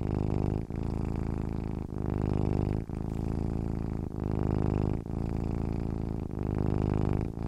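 Domestic cat purring loudly and steadily, in cycles of about one a second with a brief break between each breath.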